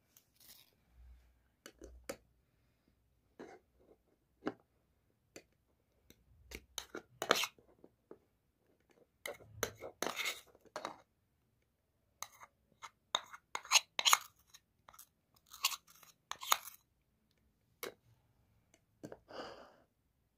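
A metal spoon scraping and pressing wet grated pulp through a small stainless-steel mesh strainer and tapping against ceramic bowls: an irregular string of short scrapes and clinks.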